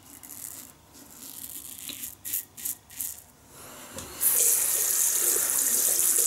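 A few short scraping strokes of a vintage Gillette open-comb double-edge razor cutting through lather and stubble, then about four seconds in a tap is turned on and runs steadily into the sink.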